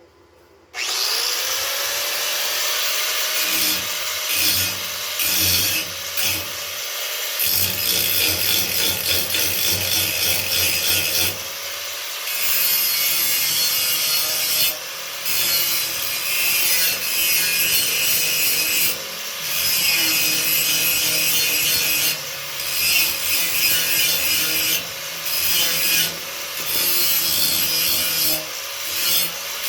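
Electric power saw spinning up and cutting wood. Its motor tone rises at the start and sags each time the blade bites, with short breaks between cuts.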